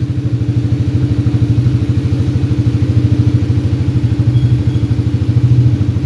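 A 150cc sport ATV's engine idling steadily at an even, unchanging speed.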